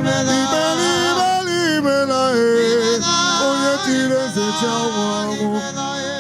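Worship song: a solo voice singing a melody, likely in Igbo, over a steady sustained instrumental backing note.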